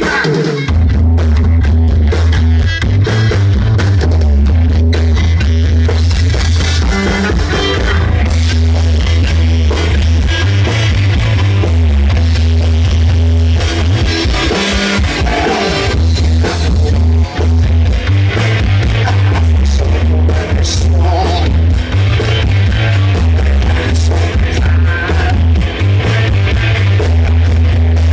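Live blues-rock band playing: electric guitars, bass guitar, drums and saxophone. It is recorded loud and overdriven on a phone, with a heavy, boomy bass.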